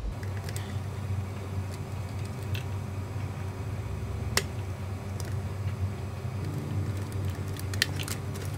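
Small plastic clicks and taps as fuel injector clips and connectors are worked loose by hand on a Ducati Panigale 1199S, over a steady low hum. One sharp click comes about four seconds in and a few more near the end.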